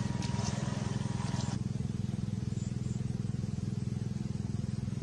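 Radio-controlled speedboat's motor running with a steady low hum and a fast, even pulse.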